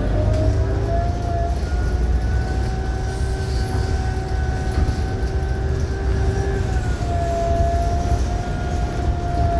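New Flyer XDE60 hybrid bus under way: the Allison H 50 EP hybrid drive whines at a steady pitch over a low engine and road rumble. The whine rises in the first second or so, holds, and drops slightly about seven seconds in, following the bus's speed.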